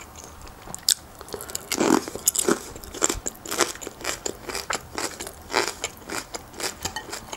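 Crunchy chewing of pickled cabbage with beetroot: a run of irregular crisp crunches and wet mouth clicks, with a louder bite about two seconds in.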